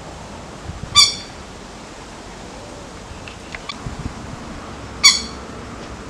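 A bird gives two short, sharp calls about four seconds apart over a steady background hiss, with a few faint clicks between them.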